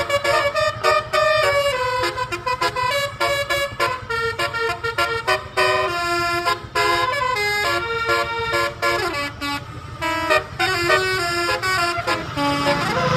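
Basuri-type 'telolet' multi-tone musical horn playing a quick melody. Its notes step up and down in pitch several times a second, with short breaks between phrases.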